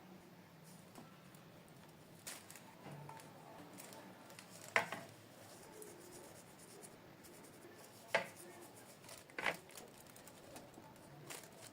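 Kitchen handling sounds: a few separate sharp clacks of utensils or dishes, the loudest about halfway through, over faint room hiss.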